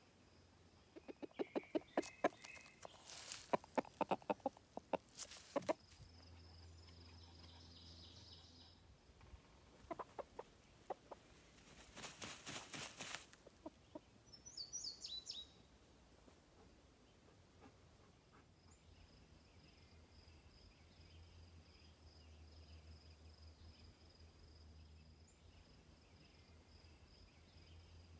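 Chickens, a rooster and a hen, giving several bursts of quick clucks and scratchy rustling while dust-bathing. The loudest burst comes in the first few seconds and shorter ones follow near the middle. A brief falling bird chirp comes near the middle, and a faint steady high insect trill runs underneath.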